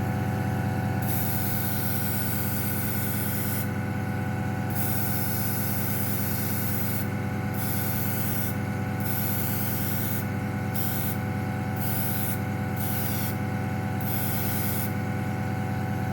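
Airbrush spraying paint in repeated short bursts of hiss as the trigger is pressed and released, about nine times, for light coats. A steady low hum runs underneath throughout.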